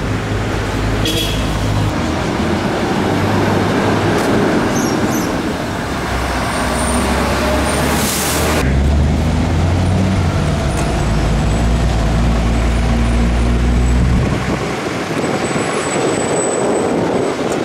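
City street traffic with a heavy engine running close by in a steady low drone, a short loud hiss about eight seconds in, and the engine drone dropping away about three seconds before the end.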